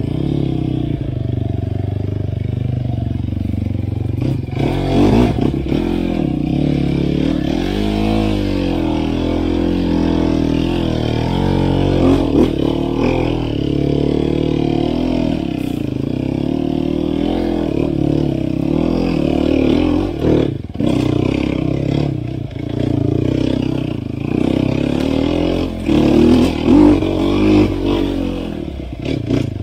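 Enduro dirt bike engine revving up and down under riding load, with a few sharp knocks and rattles from the bike over rough ground.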